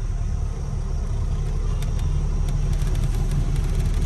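Diesel truck engine running with a steady low rumble. A run of faint, rapid light clicks comes in about halfway through.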